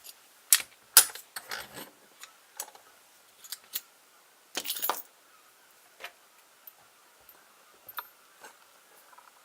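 Sharp metallic clicks and clinks of padlocks and keys being handled and set up in a clamp for picking, loudest about a second in, with a short rattle near the middle and fainter clicks after.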